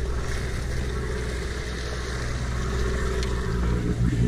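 A large sportfishing boat's engines running steadily, with a hiss of water washing along the hull.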